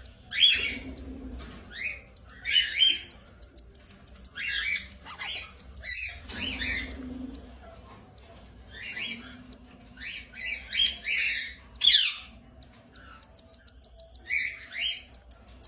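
Lovebirds calling: repeated shrill chirps and squawks in short bursts and clusters, the loudest about half a second in and about twelve seconds in. The sound cuts off abruptly at the end.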